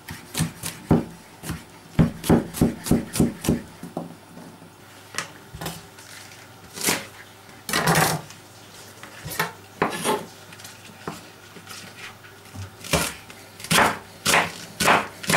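Kitchen knife chopping garlic cloves and then a leek on a wooden cutting board: sharp knocks of the blade on the board in quick runs of about three a second, with pauses between.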